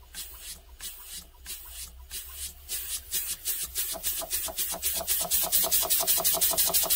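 Model single-cylinder horizontal mill engine running on compressed air, its exhaust puffing in a steady chuff. The chuffs start at about two or three a second and quicken to several a second from about halfway through as the engine speeds up from a slow crawl.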